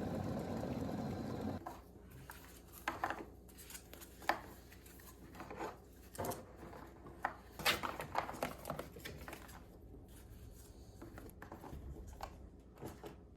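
A steady noise that cuts off suddenly about one and a half seconds in, then scattered light knocks, clicks and rustles of grocery items and packaging being handled.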